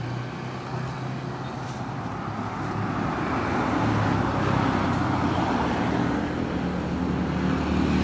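Road traffic passing: a motor vehicle's engine and tyre noise swell about halfway through and ease off, with another engine coming up near the end.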